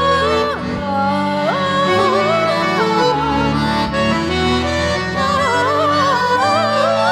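Accordion playing a slow melody over held chords and bass notes, the melody wavering in pitch in the second half.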